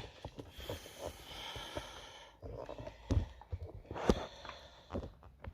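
Handling of new car suspension parts and their packaging: a rustling at first, then a few short knocks as the parts are moved and set down.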